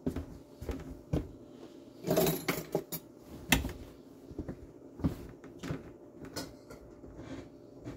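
Scattered light knocks and clicks, with a longer rubbing or scraping noise about two seconds in and a sharper, louder knock about three and a half seconds in.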